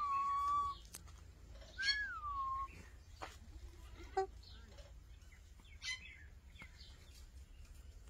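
Alexandrine parakeet giving two drawn-out calls about two seconds apart, each rising then falling and held briefly, followed by a few short sharp chirps from the parakeets.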